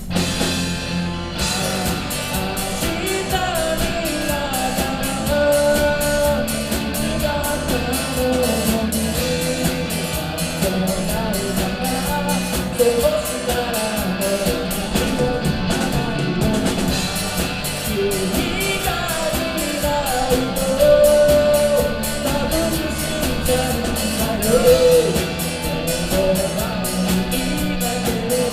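Live rock band playing a Japanese pop-rock song, with drum kit, electric guitar, bass and keyboard under a singer's voice.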